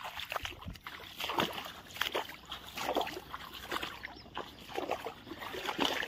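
Water sloshing and splashing in irregular strokes as someone wades through shallow, reed-filled water.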